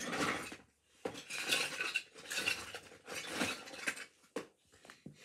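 Small hard objects clinking and rattling in four bursts of about a second each, followed by two sharp clicks near the end.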